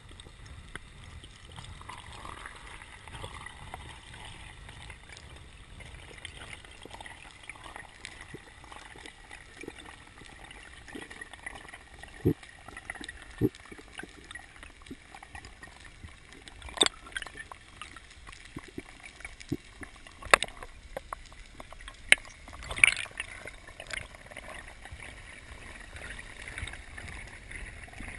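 Muffled underwater noise heard through a GoPro's waterproof housing: a steady hiss, broken by scattered sharp knocks and clicks, mostly in the latter half.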